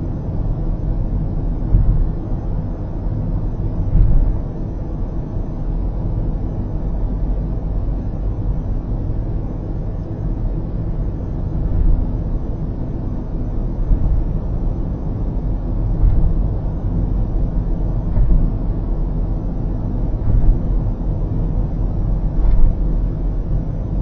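Steady low road rumble of a car cruising on an expressway, heard from inside the cabin, with a few brief louder bumps now and then.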